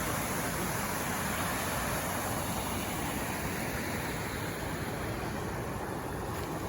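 River water rushing steadily over rocks, an even hiss with no change.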